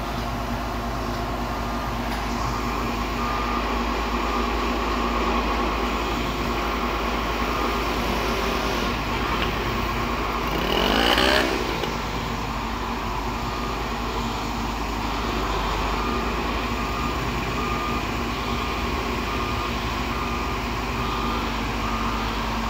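Heavy diesel excavator running steadily, with a brief rising rev about halfway through. Near the end a reversing alarm beeps repeatedly.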